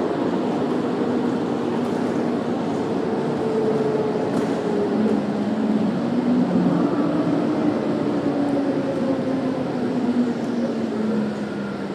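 Inside a moving city bus: the engine and drivetrain hum and whine over steady road noise, the pitch climbing a few seconds in and then easing down as the bus drives on.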